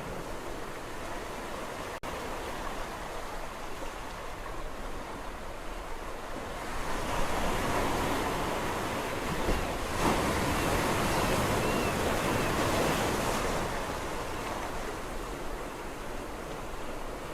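Sea waves washing on a shore, a steady hiss of surf; in the middle a bigger wave builds, breaks and surges louder, then eases back.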